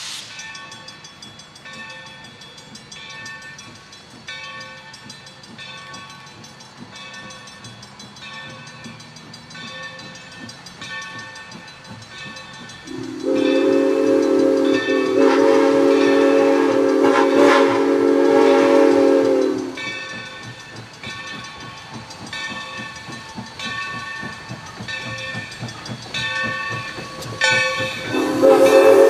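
Steam locomotive whistle blowing one long blast of about six seconds near the middle, and starting another near the end, as the train approaches a grade crossing. Under it, the grade-crossing bell rings steadily about once a second.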